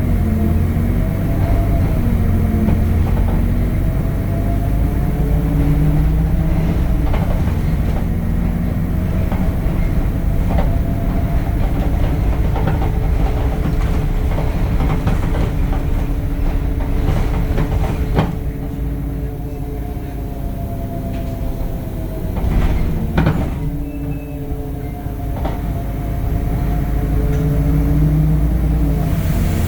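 Temsa Avenue LF 12 city bus with a DAF Euro 5 diesel and ZF gearbox, running: a steady low rumble with engine and drivetrain tones that rise and fall as it speeds up and slows, plus scattered knocks and rattles. It quietens for a few seconds past the middle, then picks up again near the end.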